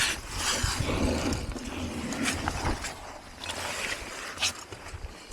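Scraping and knocking of shoes and hands on rock during a short down-climb, irregular clicks and scuffs over a low rumble.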